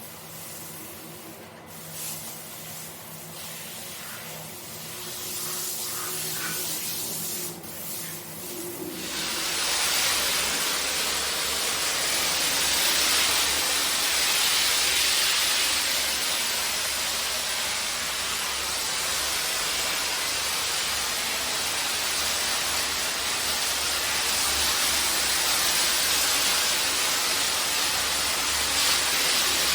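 Carpet being sprayed with water: a loud, steady hiss that starts suddenly about nine seconds in, after quieter, irregular sounds.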